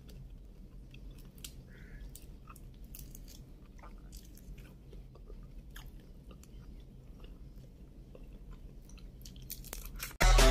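Cooked shrimp being peeled by hand close to the microphone: scattered small cracks and crackles of the shells, with a bite into the shrimp near the end. Loud music cuts in suddenly at the very end.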